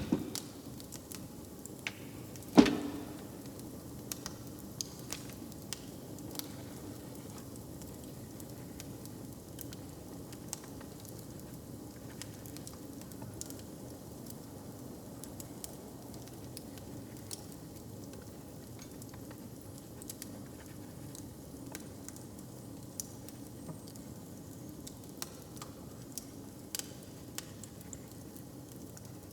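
Log fire crackling: scattered sharp pops over a low, steady background, with one loud crack about two and a half seconds in.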